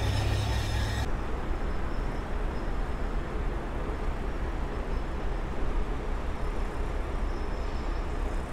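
Steady low drone of heavy diesel construction machinery running, which stops abruptly about a second in. After it comes a continuous low rumble of construction-site and road-traffic noise.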